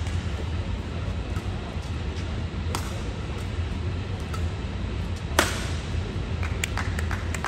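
Badminton rally: rackets striking the shuttlecock every two to three seconds, the hardest hit about five and a half seconds in, followed by a run of quicker, lighter taps near the end. A steady low hum of the hall runs underneath.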